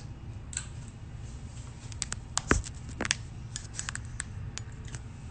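Irregular clicks and knocks of a phone being handled, its microphone brushing against hoodie fabric, with the loudest knock about halfway through.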